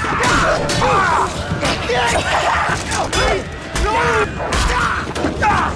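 A rapid string of short grunts and groans of effort and pain from TV drama scenes, spliced one after another at about one or two a second, with sharp knocks, thuds and clatters between them.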